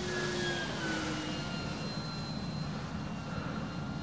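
Dynam Hawker Hurricane IIc RC model's electric motor and propeller whining as the plane flies past, the pitch dropping about a second in as it passes and moves away. Wind noise rumbles on the microphone underneath.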